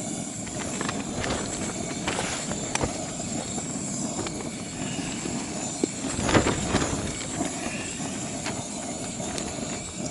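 MSR WhisperLite liquid-fuel camping stove burning steadily under a homemade aluminium oven, a continuous roar. A few light knocks and a louder clatter about six seconds in come from a wine glass and a bottle being set down and handled.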